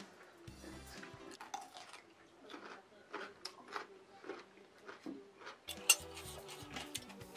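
Chopsticks and a fork clinking and scraping against a ceramic plate of ramen in a string of light, irregular clicks, the loudest about six seconds in, over faint background music.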